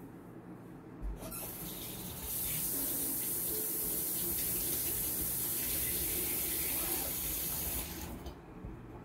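Kitchen tap running into a sink, turned on about a second in, running steadily, and shut off near the end.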